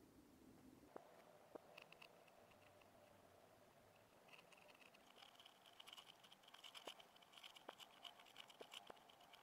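Near silence: faint room tone with a few scattered faint ticks, and a faint high, rapid rattle that comes in about halfway.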